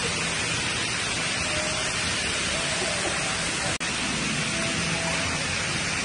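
Steady rushing of water pouring down the Dubai Mall Waterfall, a multi-storey indoor water wall, with faint voices under it. There is a momentary break about four seconds in.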